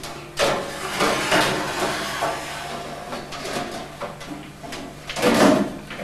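Metal outer cover of a tower PC case being slid on over the chassis: a scraping, rattling slide that starts suddenly, with a louder scrape-and-knock about five seconds in as the cover goes home.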